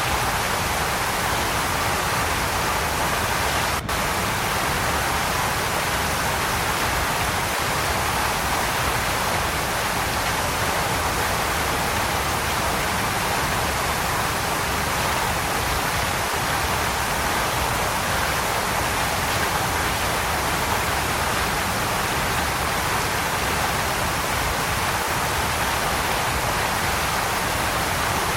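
Waterfall: a steady rush of falling water, with a momentary dip about four seconds in.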